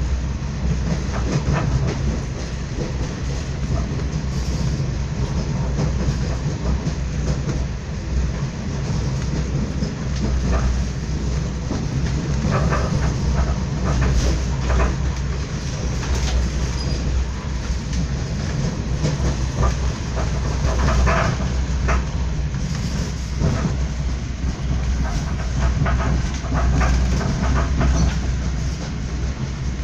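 Passenger train running along the track, heard from inside the carriage: a steady low rumble with scattered clicks and knocks.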